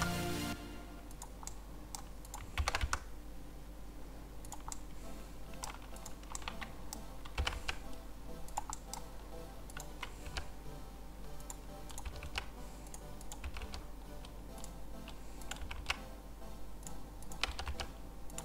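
Computer keyboard keys and mouse buttons clicking at an irregular pace, a few clicks louder than the rest, over a low steady hum.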